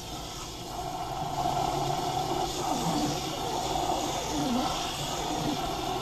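Cold tap water running from a kitchen faucet into a pan of wild bird seed, filling the pan: a steady splashing stream that grows louder about a second in.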